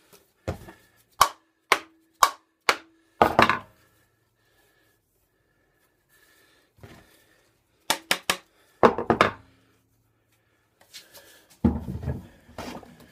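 Wooden knocks and clatter of lengths of wood being handled on a workbench: about five sharp knocks roughly half a second apart, a short scrape, then scattered knocks and thuds later on.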